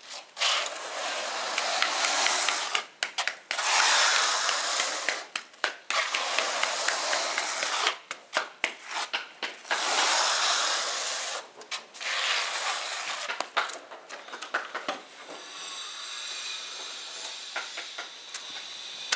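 A notched trowel scraping and combing tile adhesive across a concrete floor, in about five long strokes of one to two seconds each. Near the end it gives way to quieter scattered clicks and taps.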